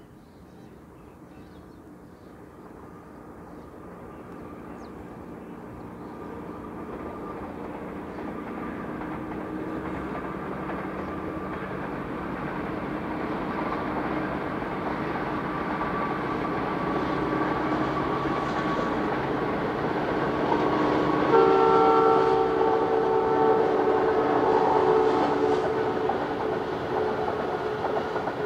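A passenger train approaches and passes, its rumble and rattle of wheels on track growing steadily louder. About twenty-one seconds in, the locomotive's horn sounds one long chord lasting about five seconds.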